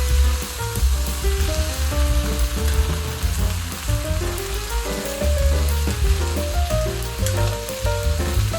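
Chicken stir fry with peppers, onions and pineapple sizzling in a hot pan, a steady frying hiss that cuts off near the end, over background music with a bass line.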